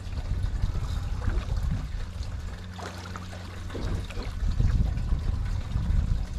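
Water splashing and lapping at the side of a small boat, over a low, uneven rumble.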